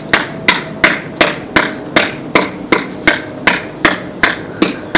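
Steady hammer blows, about three strikes a second in an even rhythm, with a few bird chirps in the background.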